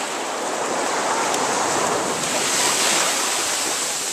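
Small waves washing up onto a sandy beach: a steady rush of surf that swells about two-thirds of the way through.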